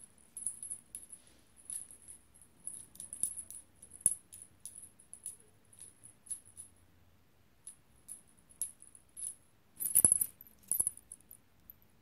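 Small bell jingling in short, irregular shakes, a few a second, with a louder burst of jingling about ten seconds in.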